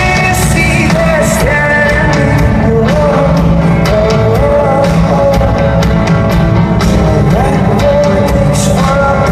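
Rock band playing live: a singer's voice over guitars, bass and a steady drum beat, loud throughout.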